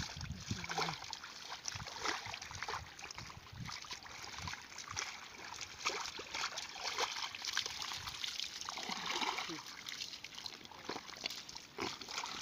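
Hands and feet splashing and squelching in shallow muddy pond water as people grope in the mud for fish, with many short, irregular splashes and sloshes.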